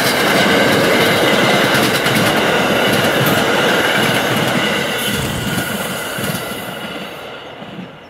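NJ Transit passenger train of Comet cars, hauled by a Bombardier ALP-45DP, rolling past close by with steady wheel-and-rail noise and repeated clicks. The noise fades over the last few seconds as the train moves away.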